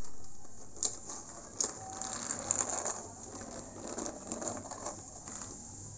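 Small plastic toy construction vehicles pushed and rolled along a board, their wheels and gears clicking and rattling, with a couple of sharp plastic knocks in the first two seconds.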